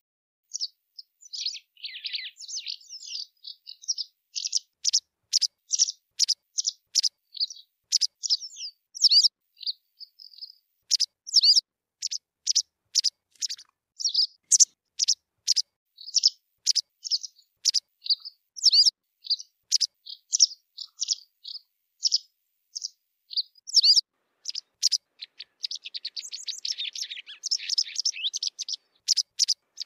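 White wagtail calling: a long series of short, sharp high chirps, roughly one or two a second, with quicker twittering runs about two seconds in and again near the end.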